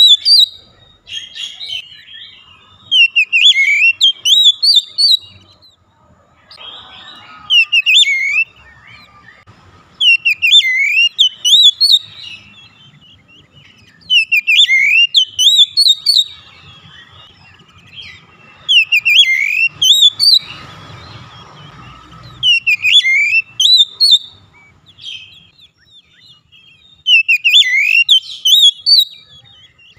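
Oriental magpie-robin (kacer) song: a loud phrase of rising and falling whistled notes, repeated about every four seconds. It is a lure recording played to set a reluctant magpie-robin singing.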